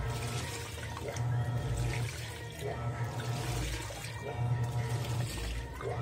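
Panasonic NA-F160B5 top-loading washing machine agitating a full load of T-shirts in water: the motor whines as the pulsator turns one way, stops and turns back, in a regular cycle about every second and a half, with water sloshing throughout.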